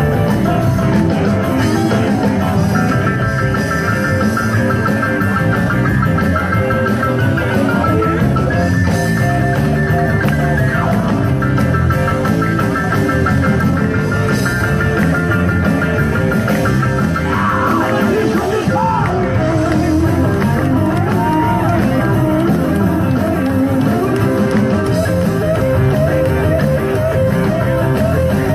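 Live rock music with electric guitar, drums and a singing voice, played loud and steady.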